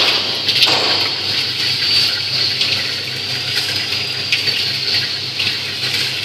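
Peanut sugar-coating machine running: a steady hiss with a low hum underneath, and a few light clicks as peanuts tumble against the stainless-steel pan and the stirring arm.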